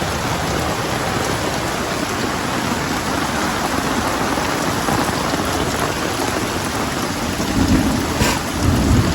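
Heavy rain pouring steadily in a thunderstorm. A low rumble of thunder builds near the end.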